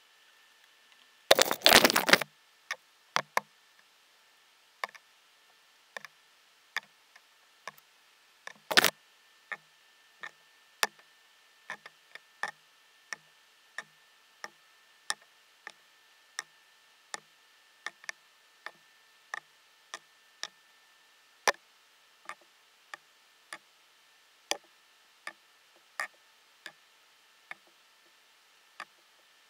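A short, rapid clatter of clicks about a second in, then steady light ticking, roughly one tick every 0.7 seconds, with a louder click now and then.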